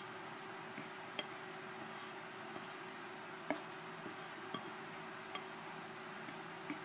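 Steady room hiss with a scattering of faint, irregular clicks, the sharpest about three and a half seconds in.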